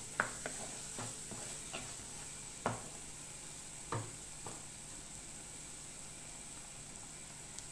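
A wooden spatula stirring a thick onion-tomato masala in an earthenware pot, with a few sharp taps against the pot in the first half, over a faint steady sizzle of the paste frying in oil. The stirring stops about halfway, leaving only the sizzle.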